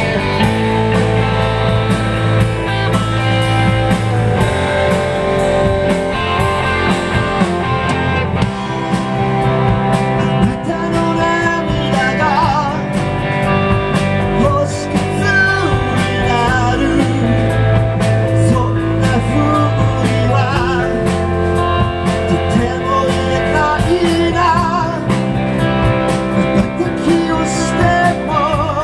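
A live rock and roll band playing loudly: electric guitars over drums and cymbals, with a voice singing at times.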